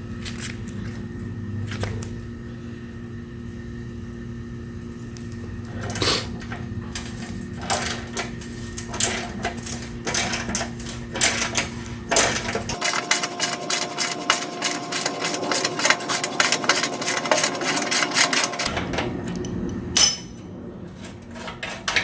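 Hand tool work on Torx bolts with a T45 Torx bit socket: scattered clicks and knocks over a steady low hum, then from about halfway a ratchet clicking rapidly and evenly as it turns a fastener, and one sharp knock near the end.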